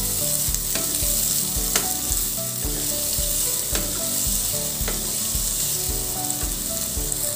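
Chopped onions frying in hot oil in a kadai, stirred with a wooden spatula: a steady sizzle with light scraping of the spatula on the pan.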